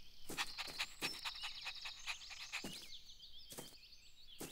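Cartoon garden ambience of small birds chirping high and continuously. Over it come short noisy breath sounds from a cartoon puppy: a quick run of them about half a second in, then a few single ones later.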